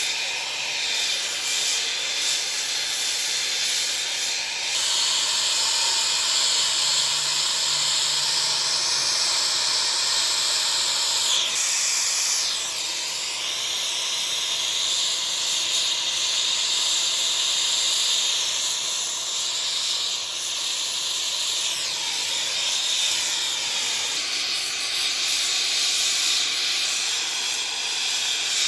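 Air-acetylene turbo torch flame hissing steadily as it heats a 3-inch copper pipe joint before soldering. The hiss gets louder about five seconds in and dips briefly twice.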